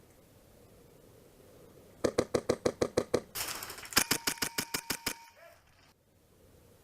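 Airsoft gun fired on full auto in two rapid bursts of about ten shots a second, with a short rush of noise between them.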